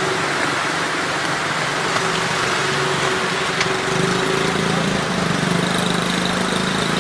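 A small motorcycle engine idling close by, a steady hum that grows a little louder about four seconds in, over a constant hiss of rain and running water on a flooded street.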